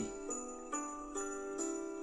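Christmas music with jingle bells shaking on each beat, a new chord about every half second, played from a laptop's speakers.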